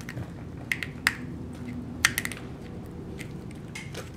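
Small plastic toy capsule handled and pried open by hand: a handful of sharp plastic clicks and snaps, the loudest about one second and two seconds in.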